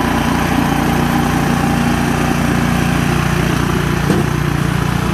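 Small engine of a two-stage walk-behind snowblower running steadily while the self-propelled machine is driven along.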